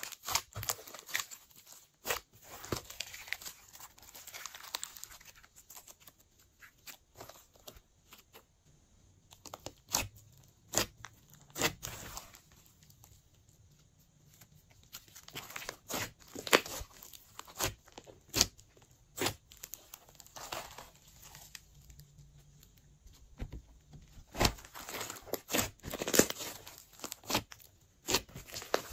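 Glossy slime being squeezed, stretched and folded by hand: irregular sticky clicks and crackling pops, with a couple of quieter spells.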